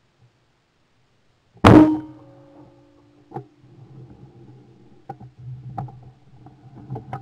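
A single shotgun shot at a flying clay target, heard from a camera mounted on the gun's barrel: one very loud report about two seconds in, with a ringing tail that dies away over about a second and a half. A few light knocks follow.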